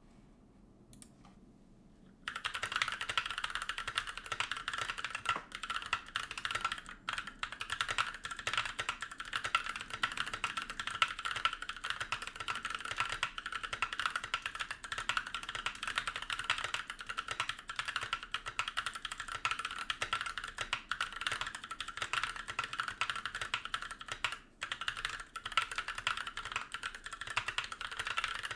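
Rapid, continuous typing on a Tofu HHKB-layout mechanical keyboard with NovelKeys Blueberry tactile switches and no plate foam fitted, the keys clicking; the owner hears this unfoamed build as less deep, with some ping. The typing starts about two seconds in, after a near-silent moment.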